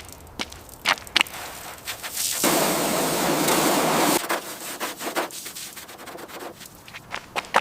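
Hand sanding or abrasive rubbing of the car body, with scattered sharp taps and clicks. A loud, steady sanding stroke runs for about two seconds in the middle.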